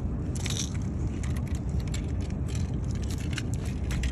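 Steady low rumble with scattered light clicks and crackles, and a brief brighter rustle about half a second in.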